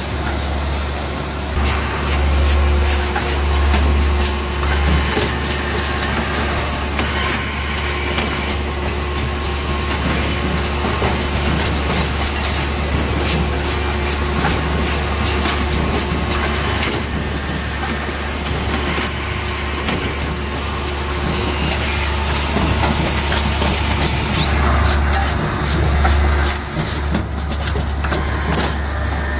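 An automated motor-rotor assembly machine, the kind that fits insulation sheaths onto rotor shafts and presses on commutators, running. Its stations give a steady low hum, with frequent sharp clicks and knocks from its cylinders and tooling.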